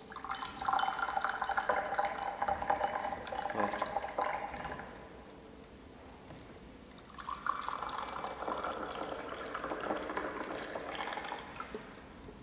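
Coffee poured from a stainless-steel pot into a double-walled glass, splashing and trickling for about five seconds. After a short pause, a second pour fills another glass and stops near the end.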